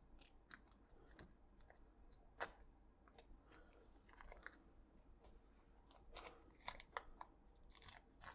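Faint, scattered clicks and crackles of tape being peeled off a camera body.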